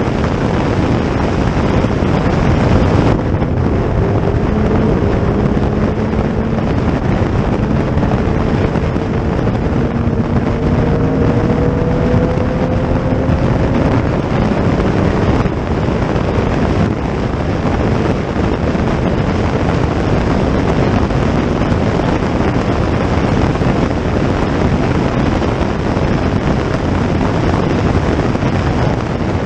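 Racing car engine accelerating on a circuit, its note slowly rising for about ten seconds, largely buried under heavy wind buffeting on the microphone.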